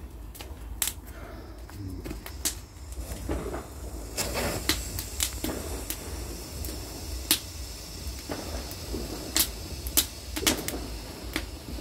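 Bonfire of burning wood crackling, with irregular sharp pops and snaps every second or two.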